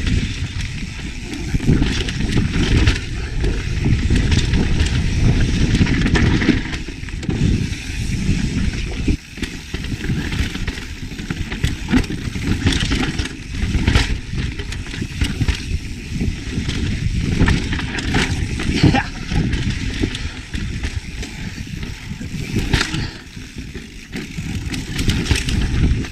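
Yeti SB150 mountain bike descending rocky dirt singletrack. There is a constant low rumble of wind buffeting the microphone, with tyres crunching over dirt and rock and frequent irregular knocks and rattles from the bike as it hits rocks.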